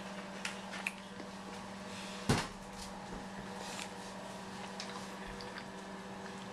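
Golden retriever chewing and mouthing a blanket on a tile floor: scattered small clicks and one sharp knock about two seconds in, over a steady low hum.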